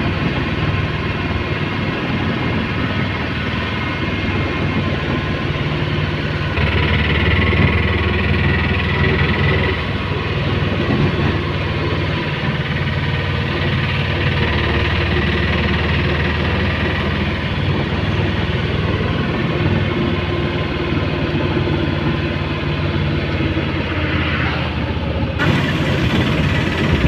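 Auto-rickshaw's small engine running as it drives along, heard from inside the open cabin as a steady drone with road noise. The engine grows louder for a few seconds about seven seconds in and again about fourteen seconds in.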